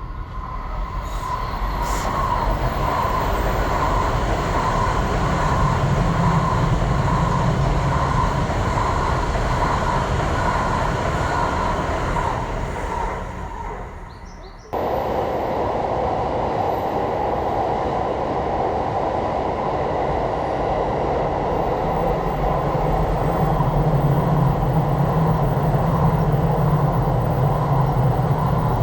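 Shinkansen trains passing: a steady running noise of wheels on rail with a humming tone, building up over the first few seconds. About halfway through it fades, then cuts abruptly into another passing train.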